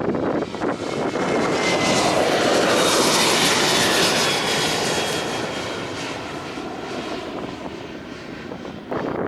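Airliner passing by, its engine noise swelling to a peak about three seconds in and then fading away, with a faint falling whine as it goes past. Wind gusts on the microphone near the end.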